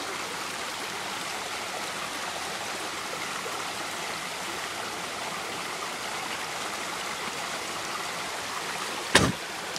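Small creek's water rushing steadily over rocks. About nine seconds in there is a single loud knock.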